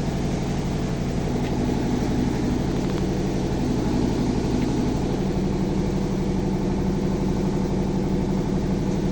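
A motor engine running steadily at a constant speed: a low, even hum with a fast throb.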